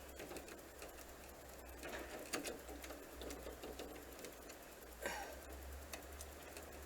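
Faint clicks and scrapes of a patio door handle and key being worked against the mortise lock inside the door while lining them up. A few sharper clicks come about two seconds in and again near five seconds, over a steady low hum.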